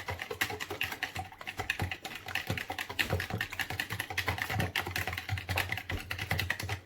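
A kitchen utensil clicking rapidly against a bowl as milk, oil, eggs and dry ingredients are whisked together into a liquid mixture for naan dough. The clicks come unevenly, several a second, without a break.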